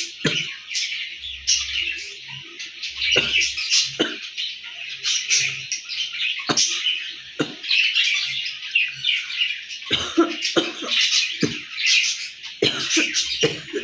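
Many small birds chirping continuously in a dense chorus, with a dozen or so short, sharp sounds scattered through it.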